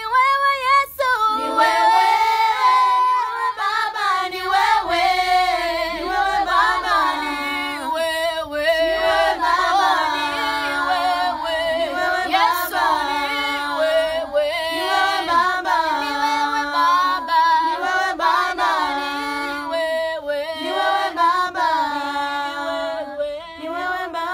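A girl singing a slow worship song unaccompanied, holding long notes with vibrato.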